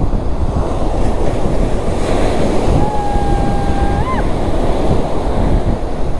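Sea waves breaking and surf washing up the sand, loud and continuous, with wind buffeting the microphone. Around the middle, a thin steady tone sounds for about a second and a half and rises at its end.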